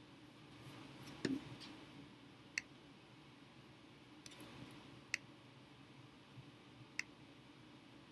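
Faint, sharp single clicks of a computer's pointer button, four of them a second or two apart, the first the loudest, with a softer patter of clicks about four seconds in, over low room hiss.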